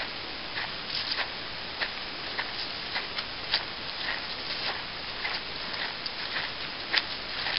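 Footsteps crunching on a dry dirt trail littered with dead leaves, about two uneven steps a second, over a steady hiss.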